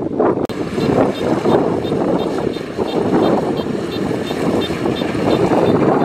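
Kubota DC105X crawler combine harvester running as it cuts rice: a steady diesel engine and threshing-machinery noise. The sound changes abruptly about half a second in, after which a faint high chirp repeats several times a second over the machine.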